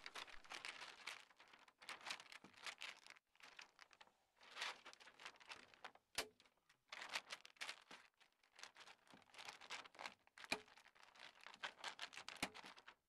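Faint crinkling of radiant barrier foil as it is handled and wrapped around the truss webbing, with a few sharp snaps of a manual staple gun fastening it.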